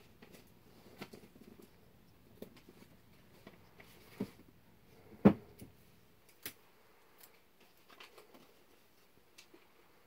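Spring-assisted folding pocket knife being worked in the hand: light clicks, then the stainless blade snaps open with one sharp, loud click about five seconds in, followed by a few lighter clicks and ticks.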